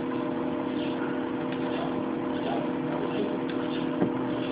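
Steady background hum made of several constant tones over a low hiss, with a few faint ticks and one sharper click about four seconds in.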